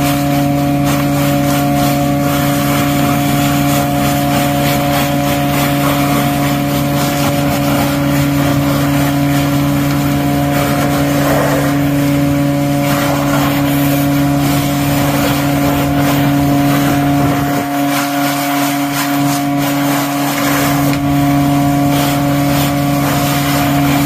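Vac-Tron vacuum excavator running steadily with a low hum, its suction hose drawing water and mud out of a catch basin. The low hum weakens for a few seconds about three-quarters of the way through.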